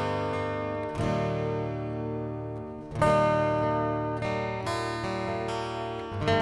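Background music: acoustic guitar strumming sustained chords, a new strum roughly every second or two.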